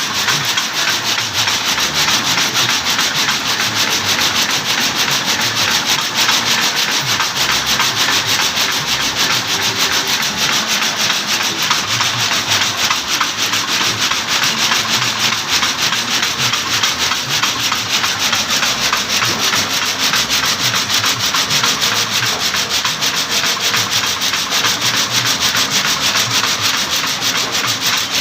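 Skewer-and-chopstick polishing machine running, the wooden sticks rubbing against each other in a steady, dense, fast-ticking hiss that does not let up.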